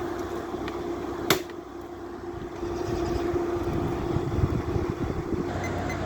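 Central air conditioner's outdoor condensing unit running steadily, its fan and compressor giving a constant hum, with one sharp click a little over a second in.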